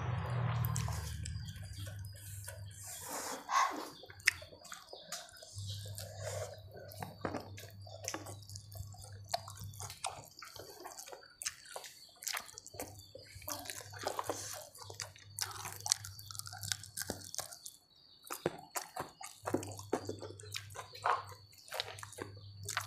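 Close-up eating sounds of rice and fish being eaten by hand: wet chewing and many small mouth clicks, with a low hum coming and going in the background.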